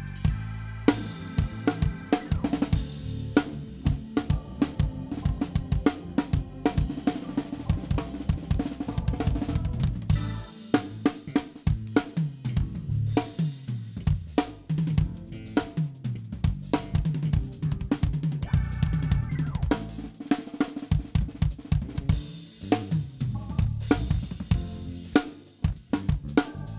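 Live drum kit playing busy grooves and fills on snare, kick and cymbals, with a bass guitar line underneath.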